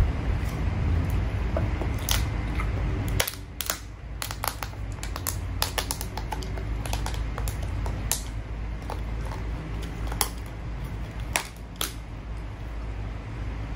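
Mukbang eating of instant noodles: scattered sharp clicks and taps of utensils and mouth, irregular, over a low steady rumble that drops about three seconds in.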